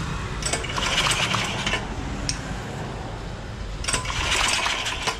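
Buffalo 6.5 hp four-stroke engine turned over twice by its recoil pull starter, each pull a rattling whir of about a second and a half, without the engine firing; the engine has lost compression.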